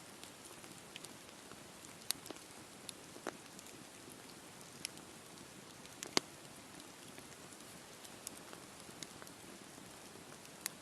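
Wood campfire burning: a steady soft hiss with scattered sharp crackles and pops, the loudest pop about six seconds in.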